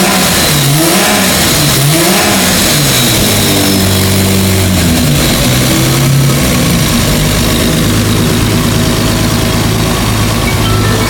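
Single-turbo Toyota 2JZ straight-six engine revving in a few quick throttle blips, then held at steadier speeds that step up and down from about four seconds in.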